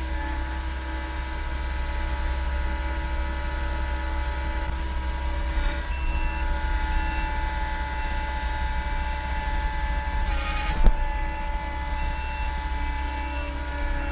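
Heavy equipment engine running steadily, with one sharp knock about eleven seconds in.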